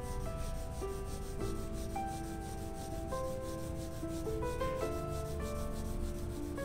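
Graphite pencil shading on drawing paper: a soft, regular scratching of quick back-and-forth strokes. Soft background music with held keyboard notes plays underneath.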